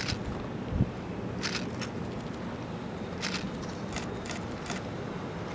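Distant, steady low rumble of the Boeing 747 Shuttle Carrier Aircraft's four jet engines on its takeoff roll, with a few short sharp clicks nearby.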